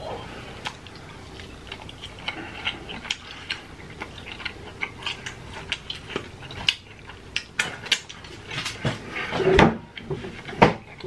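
Close-miked chewing of grilled shish-kebab beef: irregular wet clicks and lip smacks, getting denser and louder in the second half, with a louder, fuller mouth noise about nine seconds in.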